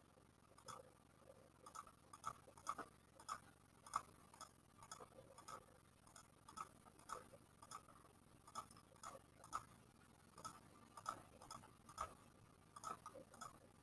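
Faint clicking of calculator keys pressed one at a time, about two presses a second with small pauses, as a list of numbers is keyed in and added up.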